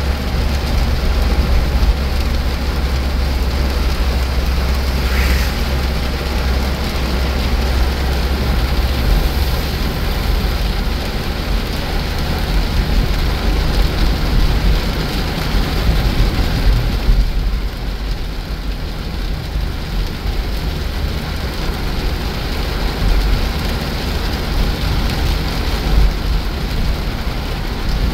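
Heavy rain falling on a moving car, over a steady low rumble of tyres and engine. The rain hiss thins briefly about two-thirds of the way through.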